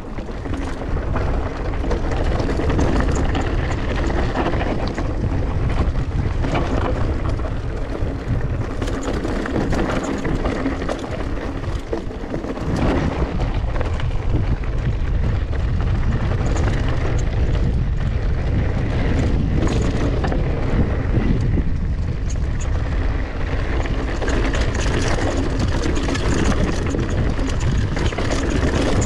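Mountain bike riding down a rough trail: steady wind rush on the microphone, with tyres rumbling and the bike rattling and knocking over rocks and roots.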